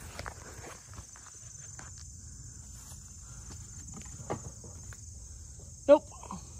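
Insects trilling steadily in a high, continuous chorus, over a low rumble with a few soft clicks of footsteps or handling. A brief, sharp louder sound cuts in once about six seconds in.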